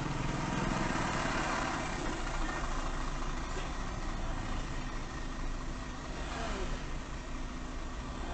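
Car engine idling steadily in stopped traffic, with other vehicles passing close by; the passing noise swells in the first couple of seconds.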